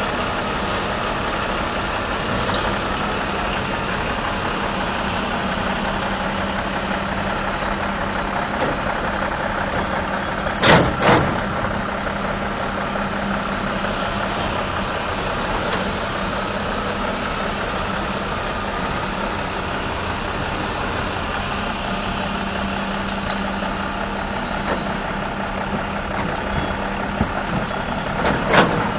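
Heavy diesel engines running steadily as an excavator loads a dump truck, with two loud bangs about eleven seconds in and more knocks near the end as dirt and rock land in the truck's box.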